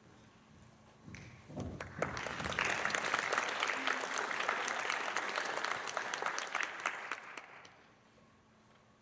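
Audience applauding, swelling about a second in, holding steady, and dying away near the end.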